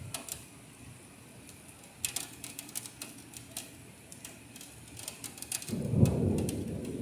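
Rain during a thunderstorm: scattered drops ticking sharply on the window ledge, then, about six seconds in, a loud low rumble of thunder sets in.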